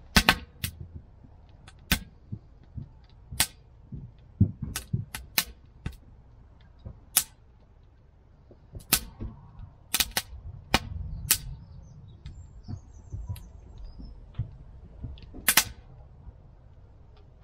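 Fire burning in a steel fire pit, crackling with sharp, irregularly spaced pops and snaps over a low rumble.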